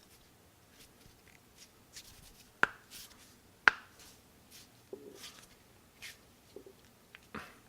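Knuckles cracking: two sharp pops about a second apart near the middle, with fainter clicks and rustling of hands before and after.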